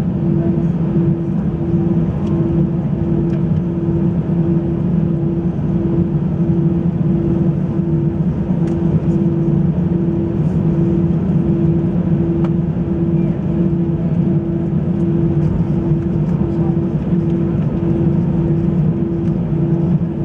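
Airbus A320 cabin noise: steady engine and airflow noise heard inside the cabin, with a low hum that pulses about twice a second.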